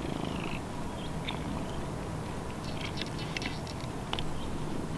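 Domestic tabby cat purring right at the microphone, a steady low rumble, with a few faint clicks a little past the middle and near the end.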